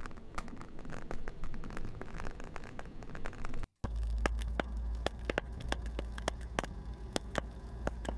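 AI-generated crackling fire from Meta Audiobox: dense, irregular pops and crackles over a soft hiss. It cuts out for an instant a little under four seconds in, and a second version starts, with sharper crackles over a steady low rumble.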